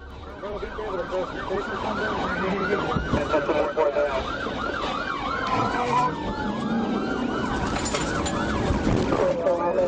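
Police car sirens, more than one at once: one in a fast rising-and-falling yelp, about three sweeps a second, with slower gliding wails beneath it, over the road noise of the pursuing cruiser.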